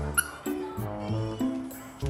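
Background music with a moving bass line and a sharp percussion hit just after the start.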